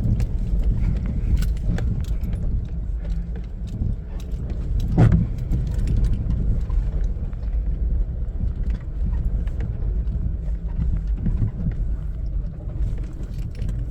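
Nissan R50 Pathfinder 4x4 crawling slowly over a rough dirt trail, heard from inside the cab: a steady low engine and tyre rumble with scattered small rattles and clicks, and a louder knock about five seconds in.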